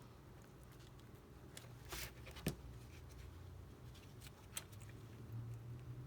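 Faint clicks and taps of small tools and parts being handled during an iPad repair, with two sharper taps about two seconds in, over a low steady hum.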